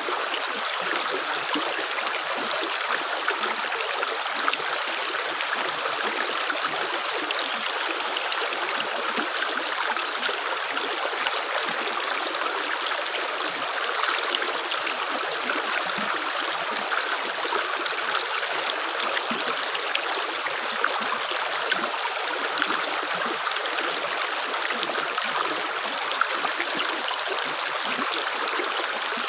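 Running water trickling steadily: an even rush with many small splashes and drips scattered through it.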